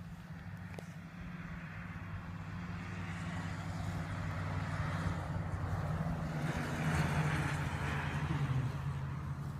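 A motor vehicle's engine running with a steady low drone, growing louder to a peak about seven seconds in and then easing off.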